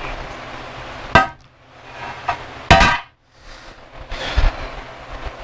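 Steel pry bar clanking against metal: two sharp knocks about a second and a half apart, the second ringing briefly, then a fainter knock.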